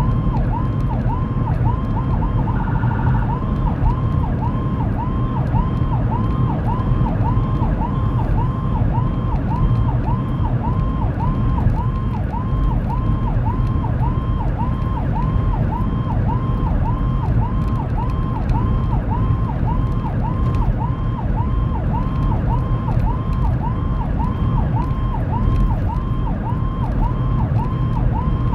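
Whelen 295SL100 electronic siren in yelp through the vehicle's 100-watt speakers, heard from inside the moving vehicle. The tone sweeps up and down rapidly, about two and a half times a second, over a steady rumble of road and engine noise. A short steady tone cuts in briefly about three seconds in.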